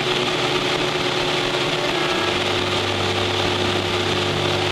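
Cessna 172's piston engine and propeller running steadily in flight, a constant drone with one steady tone, its low note shifting slightly about two seconds in.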